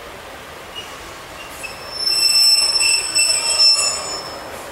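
Two-car diesel multiple unit moving slowly through the station with a high metallic squeal of several steady pitched tones. The squeal starts about a second and a half in, is loudest through the middle and fades out near the end, over a steady low rumble.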